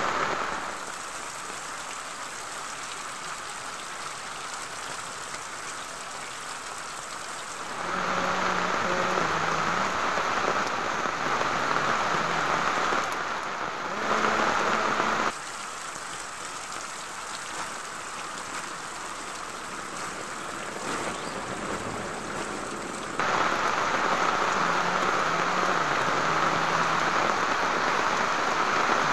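Steady rain falling on leafy plants, an even hiss of drops. Its loudness steps suddenly up and down a few times, quieter stretches alternating with louder ones.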